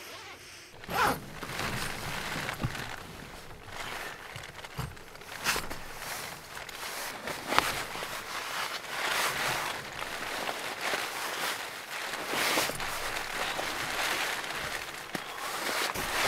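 Continuous rustling and crinkling of nylon fabric (down jacket, sleeping bag and tent walls) as someone shifts about, with scattered small knocks.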